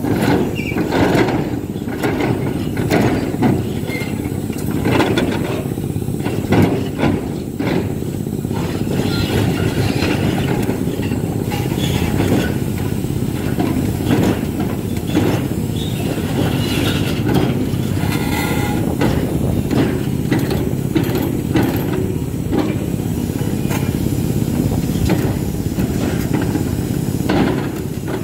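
Hidromek 390LC H4 excavator's diesel engine running steadily under working load, with repeated sharp knocks as the ripper works through marble debris.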